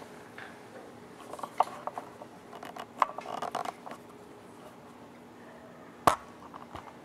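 Electric potter's wheel running with a faint steady hum while hands work the wet clay rim of a pot, with scattered clicks and knocks; the loudest is a single sharp knock about six seconds in.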